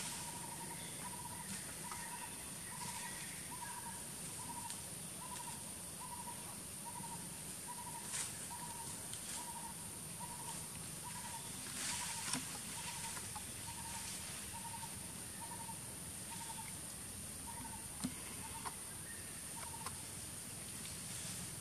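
A bird repeating one short note over and over, about three notes every two seconds, steady in pitch, falling silent near the end. Underneath is a constant high hiss, with a few brief rustles or clicks.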